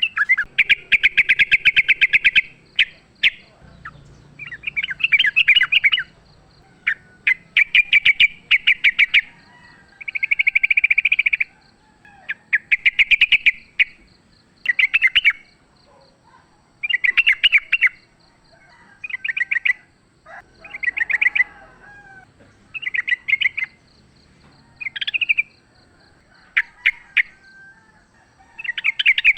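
Yellow-vented bulbuls (trucukan) calling back and forth in about a dozen bursts of rapid, bubbly chattering, each a second or two long, with short pauses between them.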